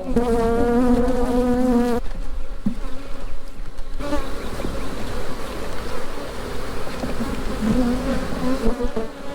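Honeybees buzzing around an open hive as frames of brood are handled. A steady, pitched hum of bees close to the microphone fades about two seconds in, leaving a fainter swarm buzz, and comes back near the end.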